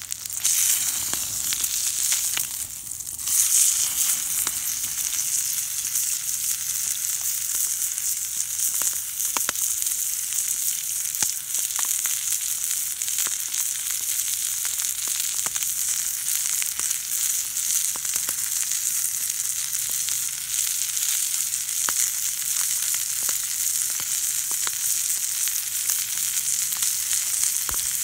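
Rib eye steak sizzling in oil in a steel frying pan: a steady high hiss that starts suddenly as the steak hits the hot pan, with scattered small pops.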